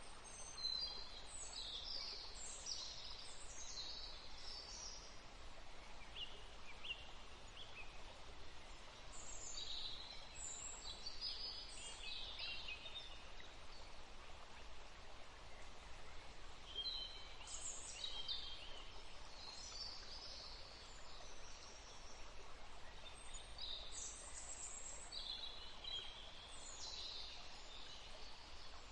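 Songbirds singing in four bouts of quick, high chirping phrases, a few seconds each and several seconds apart, over a steady background hiss.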